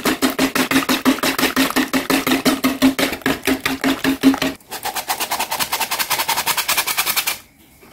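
Wire balloon whisk beating thin pancake batter in a plastic bowl, the wires rattling against the bowl in a fast even rhythm of about seven strokes a second. It pauses briefly about halfway through, resumes, then stops just before the end.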